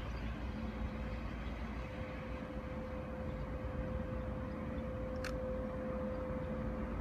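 Distant SS4 electric locomotive approaching along the track: a steady low rumble with a steady hum.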